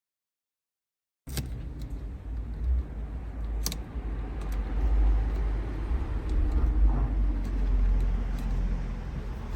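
Sound cuts in about a second in: a steady low rumble with scattered sharp clicks and light rustling, from painter's curing tape being handled and pressed on to hold an LED wire in place.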